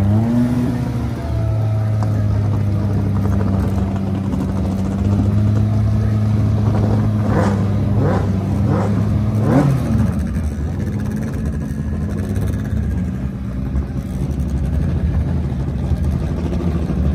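A car engine idling steadily, then blipped four times in quick succession about seven to ten seconds in, the revs rising and falling back to idle each time.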